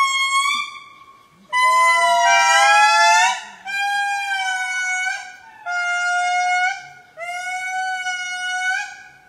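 Lemur calls: a series of long, clear wailing notes, each held for one to two seconds with a short gap between them. Most are held level or glide gently. In the first full call two voices overlap.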